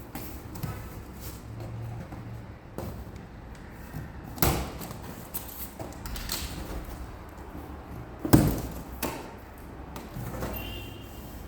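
Cardboard packaging of a flat-packed sofa being opened and handled: scattered knocks, scrapes and rustles. Two louder bangs stand out, one a little before the middle and a louder one about two-thirds of the way through.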